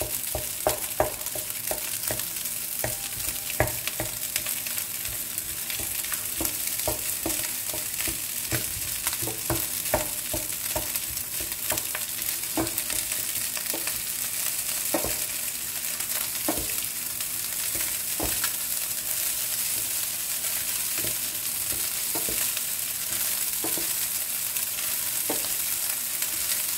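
Egg fried rice sizzling in a nonstick frying pan while a wooden spatula stirs and turns it, with irregular light knocks and scrapes of the spatula against the pan. The knocks come more often in the first two-thirds and thin out near the end.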